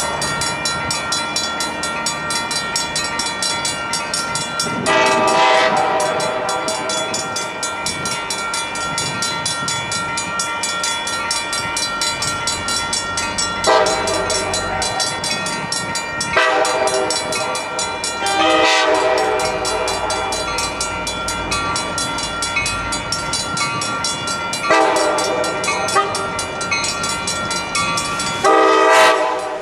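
Air horn on a Coaster commuter train's cab car, sounding a series of chord blasts as the train approaches. The first long blast comes about five seconds in and another near fourteen seconds, followed by shorter blasts, the last near the end. A steady train running noise continues underneath.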